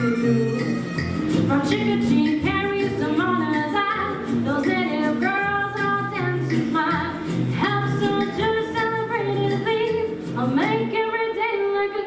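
A woman singing a 1940s-style song into a microphone over a live-sounding band accompaniment with a bass line and a steady beat. Near the end the bass and beat drop out and the voice carries on almost alone.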